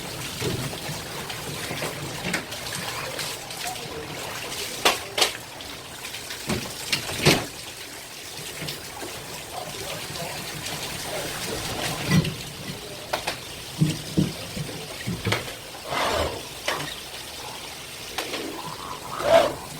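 Water trickling and running steadily, with scattered sharp knocks and clatter, the loudest about five seconds in, about seven seconds in and near the end.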